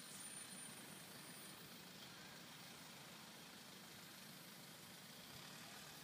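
Faint, steady road-traffic noise with a low engine hum from passing vehicles.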